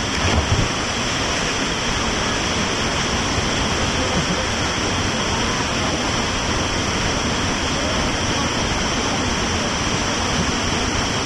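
Small waterfall's steady rush of falling water, with a brief low thump about half a second in.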